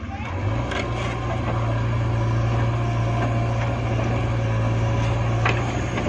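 JCB 3DX backhoe loader's diesel engine picking up revs about half a second in and then running steadily under hydraulic load as the backhoe arm digs and lifts a bucket of soil.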